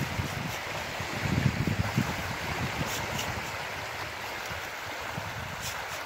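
Small waves lapping and washing around boulders at a stony sea shore, a steady gurgling wash, with low wind buffets on the microphone in the first couple of seconds.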